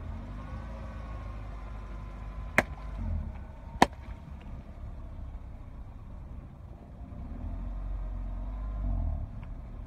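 Two water balloons bursting under a car's tyre: two sharp pops a little over a second apart, over the low, steady rumble of the car's engine as it rolls across them.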